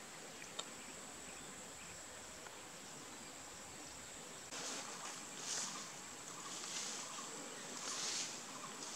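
Outdoor grassland ambience with a steady, high insect drone and one sharp click under a second in. About halfway through it steps up to a louder rushing noise that swells and fades several times.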